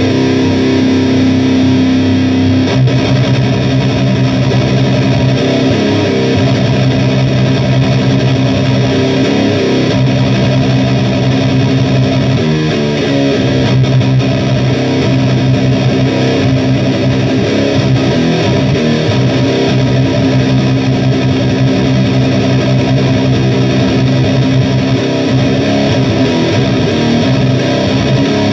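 Electric guitar through heavy distortion with a thick, grinding tone, playing long held chords that change every few seconds.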